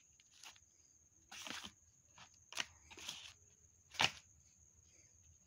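Cardboard phone box and paper packaging being handled: a few short rustles and knocks, with one sharper tap about four seconds in.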